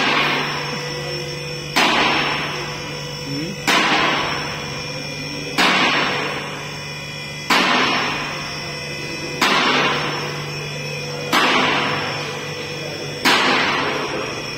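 Sharp hits at an even beat, about one every two seconds, each fading away over a second and a half, above a steady low hum.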